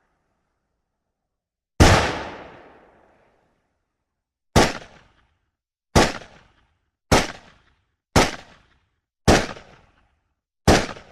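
Seven pistol shots, each with a sharp crack followed by a fading echo tail. The first, about two seconds in, rings out longest. Six more follow at intervals of about a second to a second and a half, the last near the end.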